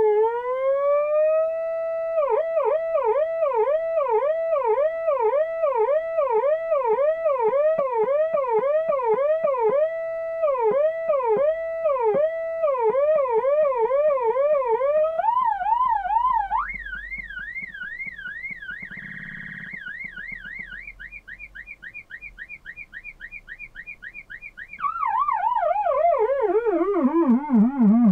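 Electronic sound-effects generator putting out siren-like synthesized tones. A tone rises in pitch, then pulses in short repeated downward chirps about two a second, shifts to higher, quieter, faster chirps midway, and near the end sweeps down in a long falling glide.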